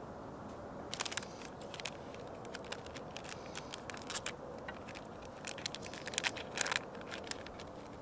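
Crinkling and crackling of a drip-coffee sachet being torn open and handled by hand: an irregular run of sharp crackles starting about a second in, loudest near the end.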